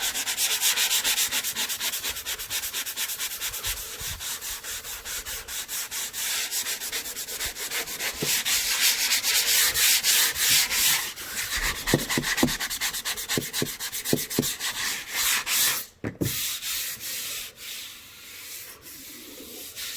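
Fine-grit sanding block rubbed back and forth by hand over dried joint compound on a drywall patch, a steady run of quick scraping strokes. It breaks off about sixteen seconds in and goes on more lightly and quietly after that.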